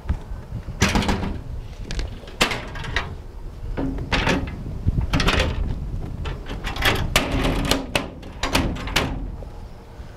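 Sheet-metal engine-hood access door on an EMD SW9 switcher locomotive being unlatched and swung open: a string of irregular metallic clanks and rattles, some ringing briefly.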